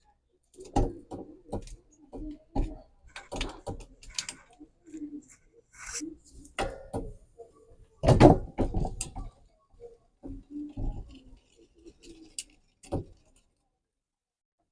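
Irregular metallic clicks, knocks and clatter of bicycle parts and tools being handled, the loudest cluster of knocks about eight seconds in.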